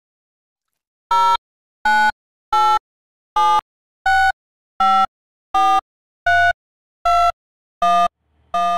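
Countdown sound effect: eleven short electronic beeps, about three every two seconds, each a little different in pitch, one for each number of a film-leader countdown.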